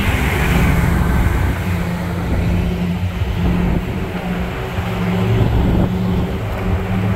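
Engine of a moving road vehicle running steadily at cruising speed, a low hum mixed with road and wind noise.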